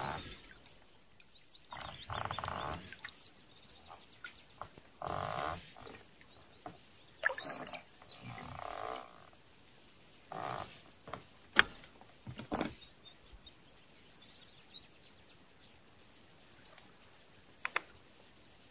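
Oar strokes through still lake water from an inflatable boat, with several short bursts of water noise and a few sharp knocks of the oar against the boat in the second half.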